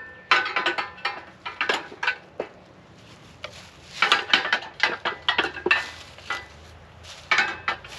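Irregular metallic clinks and knocks, some ringing briefly, as metal hardware of the mill setup is worked loose and handled.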